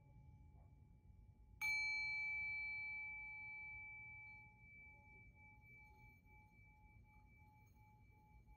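A single metal chime is struck once about a second and a half in and rings out with a clear, bell-like tone, fading over a few seconds. Its lowest note keeps humming faintly with a slow pulsing beat.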